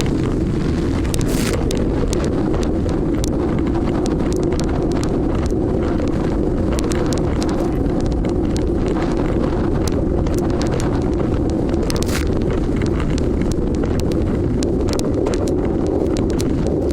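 Wind buffeting the microphone with crackles, over the steady drone of a boat under way.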